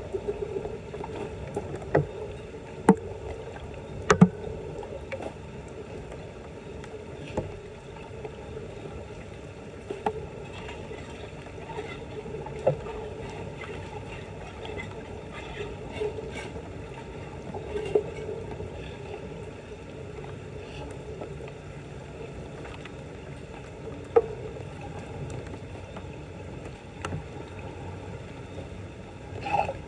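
Shallow floodwater sloshing and splashing, with sharp knocks now and then, the loudest a few seconds in.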